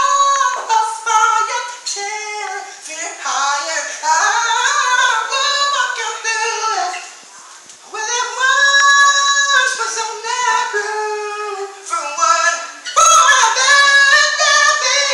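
Unaccompanied solo voice singing a high, sliding R&B melody in long ornamented phrases, with a short break for breath about seven seconds in and a louder stretch near the end.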